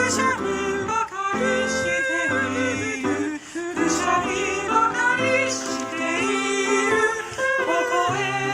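Multi-part choral singing, every part sung by the same man and layered by multitrack recording: held low bass notes under several moving upper voices.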